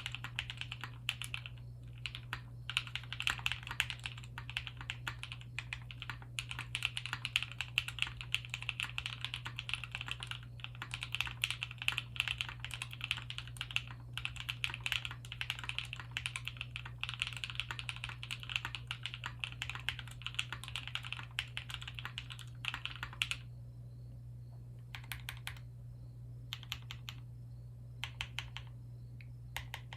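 Typing on a custom HHKB-layout mechanical keyboard with lubed, filmed Cow switches on an aluminium half plate and GMK keycaps: fast, steady keystrokes for most of the time, then only a few short bursts of keys about two-thirds of the way through. A steady low hum sits underneath.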